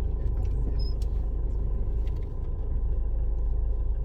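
Steady low rumble of a car driving: engine and tyre noise.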